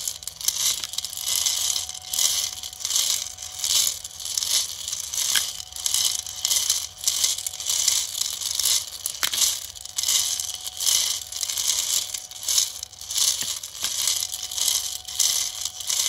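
M3 steel hex nuts clattering and sliding inside a turning 3D-printed plastic rotary hopper drum, in repeated surges about once a second with odd sharp clicks as nuts tumble back down the helical grooves. A faint steady whine runs underneath, from the Nema17 stepper motor driving the drum.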